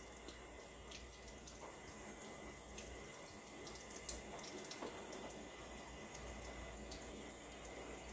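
Tap running a steady stream into a sink: an even hiss, with a few faint ticks over it.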